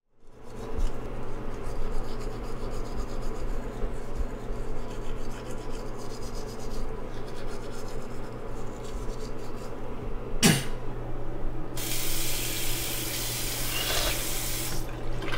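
Sounds at a bathroom sink: steady rubbing and scrubbing over a low hum. About ten seconds in there is a sharp click, then the water tap runs for about three seconds.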